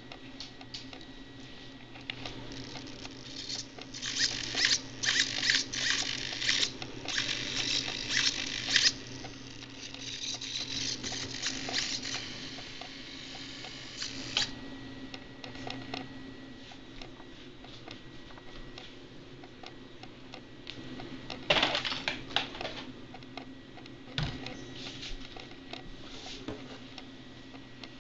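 Handling noise: rustling, clicking and clattering as the PVC torpedo body of an RC bait boat and its transmitter are handled. The noise comes in two busy stretches a few seconds in and one short clatter later on, over a faint steady low hum.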